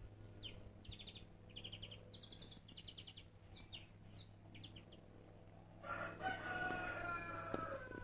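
A small songbird sings a run of short trilled and slurred high notes for the first four seconds or so. About six seconds in, a rooster crows once, louder than the songbird: a drawn-out call that falls in pitch at the end.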